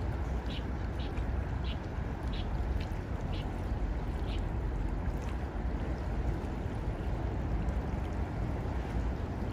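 Ducks calling on the water: a quick run of about eight short calls, roughly two a second, in the first half, then they stop. A steady low rumble runs underneath.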